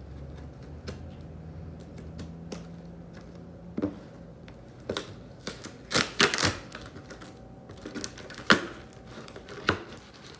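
A cardboard mail box being opened and its packaging handled: scattered light taps and clicks, with a cluster of louder sharp rustling noises just past halfway and two more single ones near the end.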